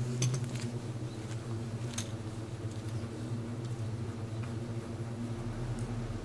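A steady low mechanical hum, like an engine running at idle, with a few light clicks and taps over it, the clearest about two seconds in.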